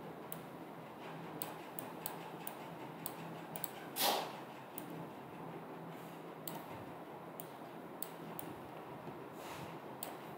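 Faint, irregular clicks of a computer mouse being clicked while drawing, spaced out by half a second to a second, over a low steady hum. About four seconds in comes one brief, louder puff of noise.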